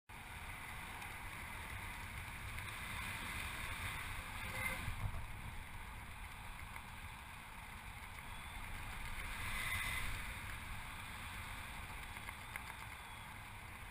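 Steady rush of wind over an action camera's microphone in paraglider flight, swelling briefly twice, about five and ten seconds in.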